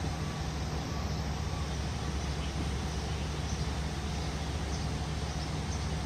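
Steady low mechanical hum over city street noise, with no distinct events.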